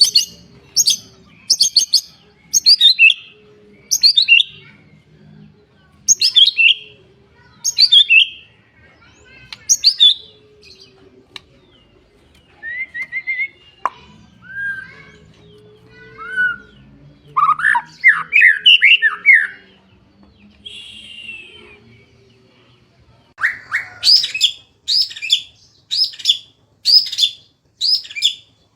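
A songbird singing: short, sharp high notes that fall in pitch, given about once a second, then a stretch of lower warbled phrases, and near the end a quicker run of falling notes about two a second.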